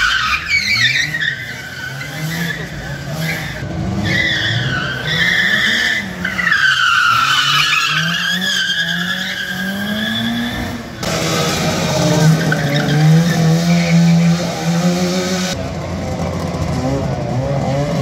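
Opel Astra hatchback driven hard around a cone course: the engine revs up and down with the gear changes while the tyres squeal through the turns. About eleven seconds in, the sound cuts abruptly to a car engine held at steady high revs with little squeal.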